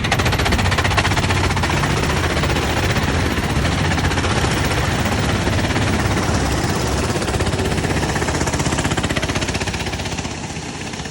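Go-kart engine running close by with a fast, even pulsing exhaust beat, its sound dropping away near the end.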